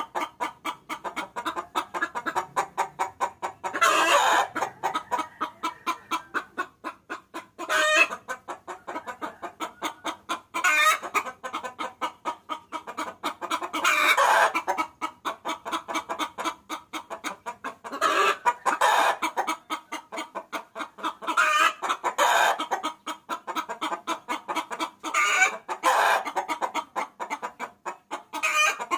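Hen cackling: a fast, even run of short clucks, about four or five a second, broken every few seconds by a louder, drawn-out call.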